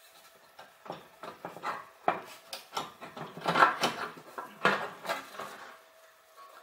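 Metal front panel of a Sanyo MOV-112F laboratory oven being worked loose and pulled off: an irregular run of metallic clatters, knocks and scrapes, loudest a little past halfway.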